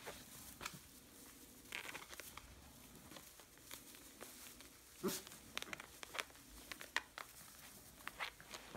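Puppies shuffling and scrambling about in dry straw bedding: irregular crackling rustles and light scratchy clicks, busier in the second half, with one louder bump about five seconds in.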